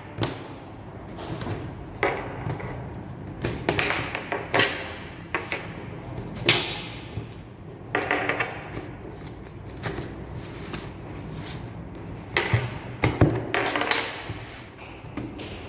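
Packaging and a book being handled and opened: irregular rustling swishes with scattered taps and knocks.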